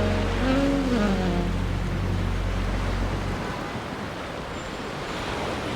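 Ocean surf washing steadily onto the beach. A background song's last notes fade out in the first second or so, and its low bass note lingers until about three seconds in.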